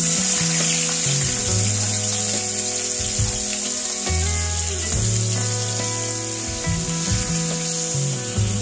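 Marinated chicken pieces sizzling steadily in hot oil in a wok, with background music playing.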